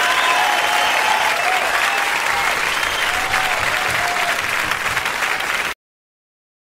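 Crowd applauding, with a few voices calling out over the clapping; it cuts off abruptly near the end.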